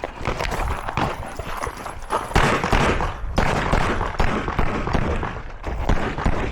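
Scattered pistol gunfire at a competition shooting range, a run of sharp cracks over a steady low rumble.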